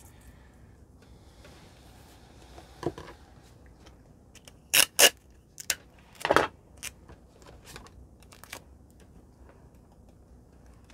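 Small scissors trimming tape on a paper planner page. A soft rustle is followed by a few sharp snips and clicks, the loudest a close pair about five seconds in, then light handling of paper and tape.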